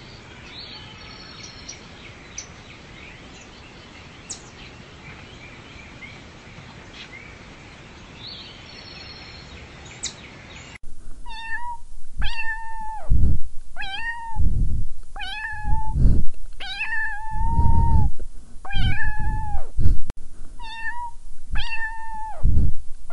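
Kitten meowing over and over, about ten loud, high meows roughly a second apart, one of them drawn out. The meows begin suddenly about halfway in. Before them there is only a steady faint hiss with a few thin chirps.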